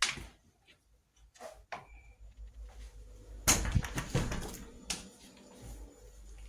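Kitchen knife dicing a green pepper on a cutting board: irregular knocks of the blade on the board, with a quick cluster of cuts about three and a half seconds in.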